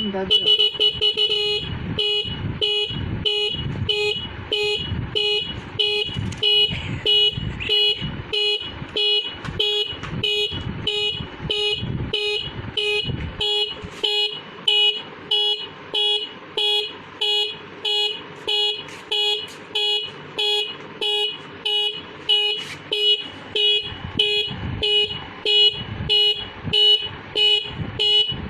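Motorcycle horn sounding in rapid, evenly repeated beeps, very fast for the first second or so, then about two beeps a second.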